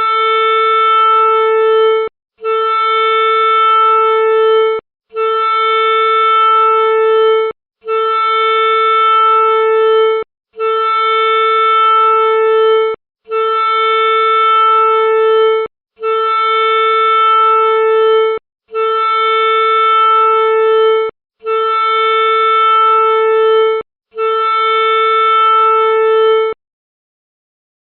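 A steady, horn-like held tone, sounded about ten times in a row as identical notes a little over two seconds long with brief breaks, then it stops.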